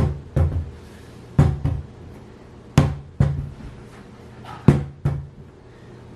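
A ball of ZURU Oosh putty bounced four times on a hard surface, each thud followed by a smaller rebound hit.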